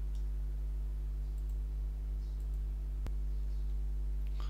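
Steady low electrical hum with a few faint steady tones above it, with a single sharp click about three seconds in.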